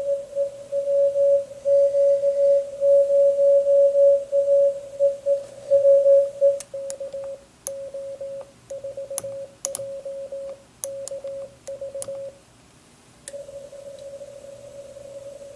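Morse code (CW) from a Recent RS-978 QRP transceiver's speaker: a single mid-pitched tone keyed on and off in dots and dashes. Over the middle stretch a run of sharp clicks comes in among the tone; after a short break the tone goes on more quietly near the end.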